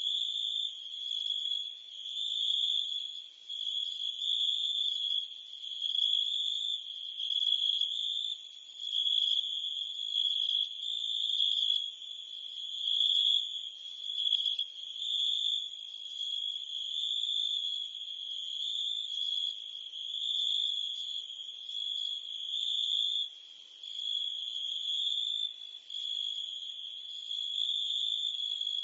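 Insect chorus of crickets and cicadas: a steady, high-pitched chirring that swells and fades in loudness about every one and a half to two seconds.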